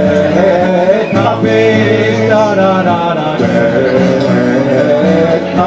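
A man singing, with long held notes, over a strummed acoustic guitar.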